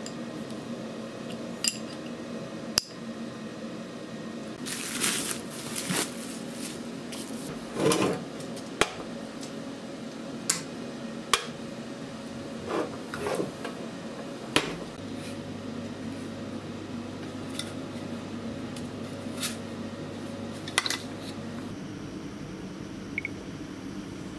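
Sharp, irregular metal clinks and knocks from a ratcheting wrench and small metal parts being handled and set down on a workbench while a pneumatic valve and a metal electronics box are assembled, with some rustling handling noise. A low steady hum joins partway through.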